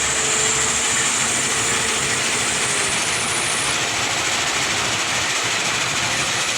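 Bull backhoe loader working, its engine running steadily under load, with a faint whine through the first half.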